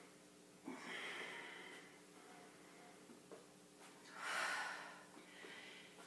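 A woman's heavy breathing under exertion during a leg-lift exercise: two audible breaths, one about a second in and a louder one about four seconds in, over a faint steady hum.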